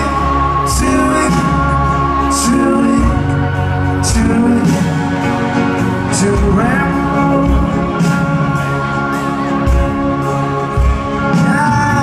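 Live rock band playing a song in a concert hall, heard from the crowd: acoustic and electric guitars, drums and keyboard, with singing.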